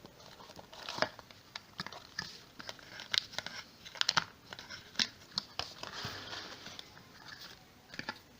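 Packaging being handled during a phone unboxing: irregular crinkling, rustling and sharp clicks and taps, busiest in the middle.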